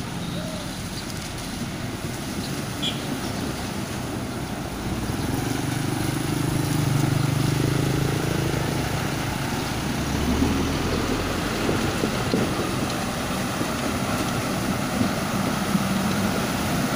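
Diesel dump truck engines running as the trucks crawl through deep muddy floodwater, with water sloshing and churning around the wheels. The engine grows louder from about five seconds in as a truck passes close.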